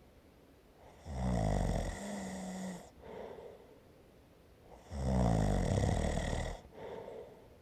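A person snoring with steady, slow breathing: two loud snores about four seconds apart, each followed by a softer breath.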